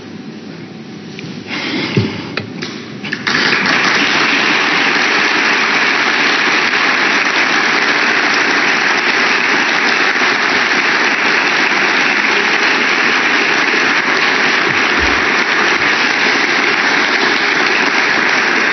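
Audience applauding: a few scattered claps about a second and a half in, then full, steady applause from a little over three seconds on.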